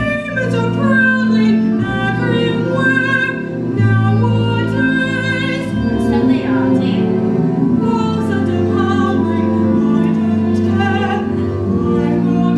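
A solo voice singing a musical-theatre ballad in long held notes with vibrato, over steady instrumental accompaniment.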